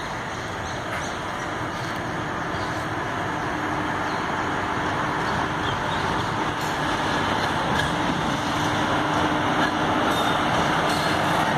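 Electric locomotive moving slowly through a rail yard: a steady rumble of wheels on rails with a faint hum that grows gradually louder as it approaches.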